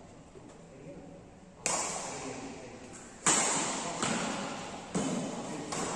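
Badminton racket strings hitting a shuttlecock in a rally: three sharp hits about a second and a half apart, starting about a second and a half in, each trailing off in the reverberant hall, with a fainter hit near the end.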